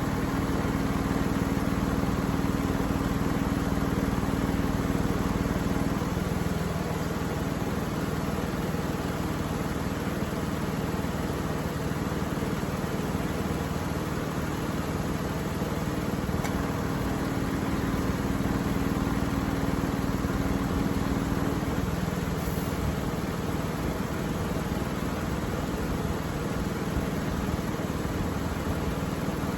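Jeep Grand Cherokee engine idling steadily while its air conditioning is recharged with refrigerant. A steady hum rises over the idle for about six seconds at the start and again for about five seconds in the second half.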